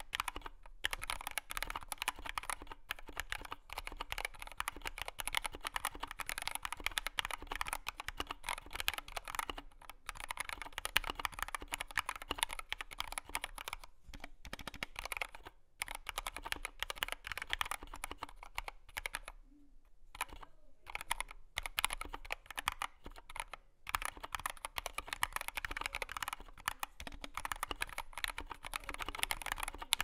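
Continuous fast typing on an Akko ACR59 mechanical keyboard with Akko CS Jelly White linear switches and PBT doubleshot keycaps: dense clacking keystrokes, broken by a short pause about two-thirds of the way through.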